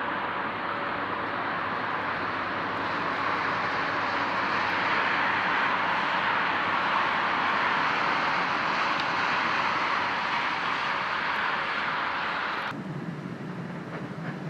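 A DB Class 425 electric multiple unit passing on the rails: a steady rushing rolling noise that swells and holds. About thirteen seconds in it drops suddenly to a quieter, lower hum.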